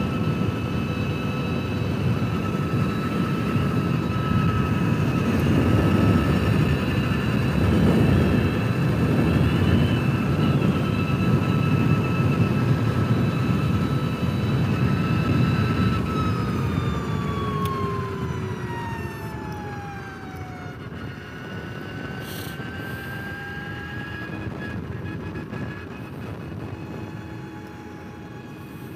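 Energica electric motorcycle under way: a steady high whine from its electric motor over heavy wind noise. About halfway through, the whine glides down in pitch and the wind noise drops as the bike slows. Then a quieter whine rises gently for a few seconds.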